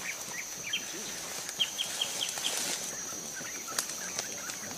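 Tropical forest ambience: a steady high-pitched drone with birds chirping in short quick notes, including a run of about five notes about one and a half seconds in. A single sharp click comes near the end.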